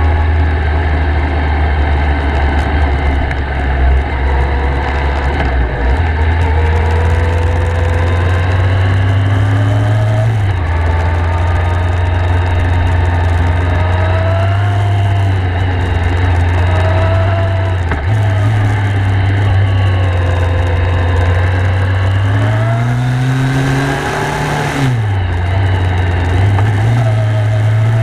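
Kawasaki ZRX1200S inline-four engine heard from on board while riding, running steadily with the revs shifting at gear changes. Near the end the revs climb for a couple of seconds, drop sharply, then pick up again.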